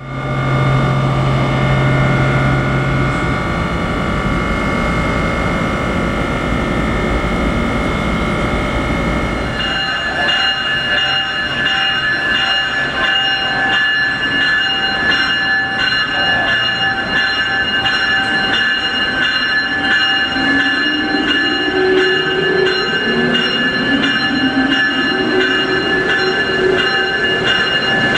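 Amtrak ACS-64 electric locomotive moving slowly along a station track. A low rumble gives way, about ten seconds in, to several steady high-pitched electrical whines. In the second half a fainter whine rises and falls as the locomotive creeps forward.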